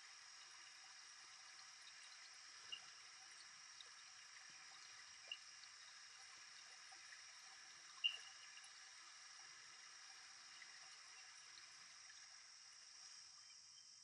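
Near silence: a faint steady hiss, with a few faint brief ticks, the clearest about eight seconds in.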